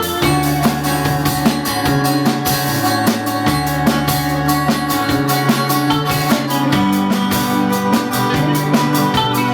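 Indie pop band playing an instrumental passage live: a drum kit keeping a steady beat under guitar, over held low notes that change every second or so.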